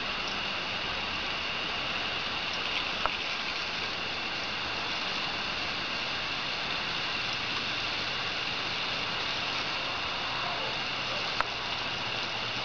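Steady splashing of a garden hose's water stream falling onto grass and wet pavement, with two sharp clicks, one about three seconds in and one near the end.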